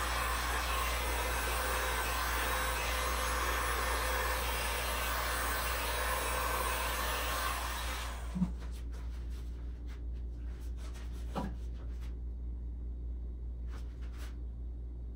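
A handheld heat gun blows hot air over wet epoxy resin with a steady rushing noise that cuts off about eight seconds in, leaving a low steady hum.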